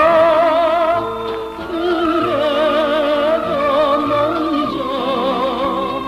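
A male singer sings a slow 1960s Korean pop ballad (trot-style) with a strong, wavering vibrato, over band accompaniment with a steady bass line. He moves to a new note every second or so.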